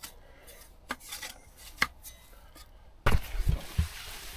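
Metal stove-pipe sections being fitted onto a small tent wood stove: light scraping with a couple of sharp clicks about a second apart. About three seconds in, louder low thumps and rumbling take over.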